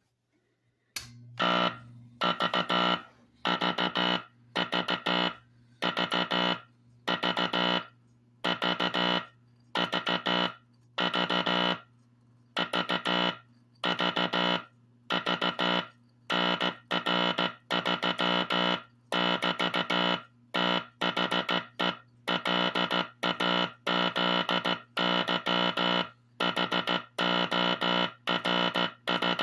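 Vintage Teleplex code practice oscillator playing Morse code from a code drum: a buzzy pitched tone keyed on and off in dashes and dots, starting after a click about a second in. A steady low hum runs underneath.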